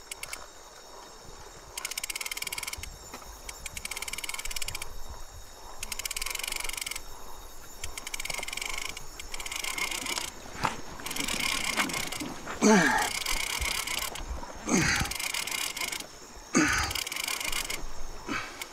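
Fishing reel being wound in short spurts, its gears whirring and clicking, as line is taken in to feel for a bite. Three short sounds falling in pitch stand out in the second half.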